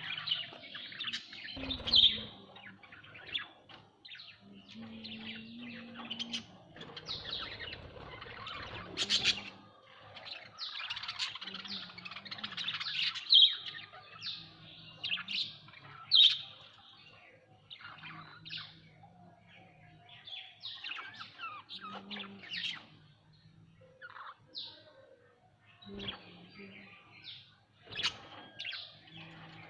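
Pet budgerigars chattering: a continuous warbling with many sharp chirps over one another, and a few brief clicks among them.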